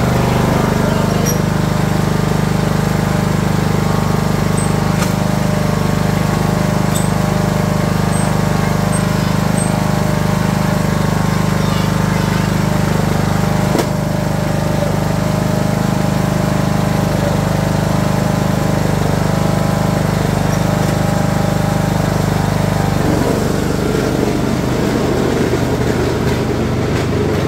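A 2006 Craftsman YS4500 lawn tractor's engine running steadily, heard up close. Near the end its steady note gives way to a rougher, noisier sound as the tractor moves off.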